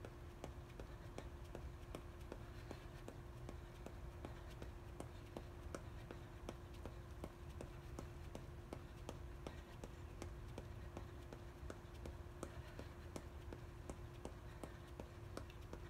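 Athletic shoes tapping on a concrete patio in quick, even footfalls, about three a second, from running in place with high knees. A faint low hum runs underneath.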